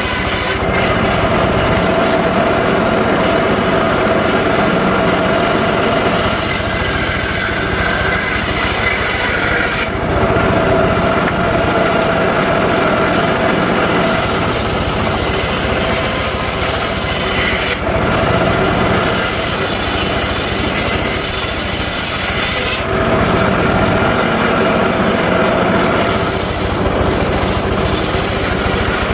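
Homemade circular saw running steadily and cutting sengon logs, its sound changing every few seconds as the blade goes into and out of the wood.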